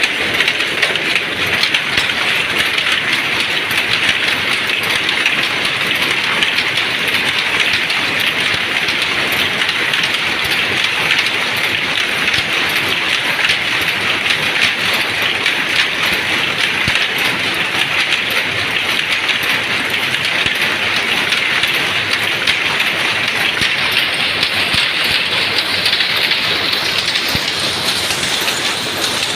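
Dobby power loom weaving terry towelling: a loud, steady, rapid mechanical clatter.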